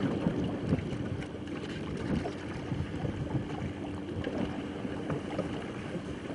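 Wind buffeting the microphone over open water, with small scattered knocks and a faint steady hum underneath.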